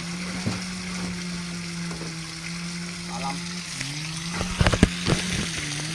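Water hissing and splashing as it drains from a fish-transport truck's tanks, over a steady motor hum. The hum dips in pitch and climbs back about two-thirds of the way through, and a few sharp slaps come just after.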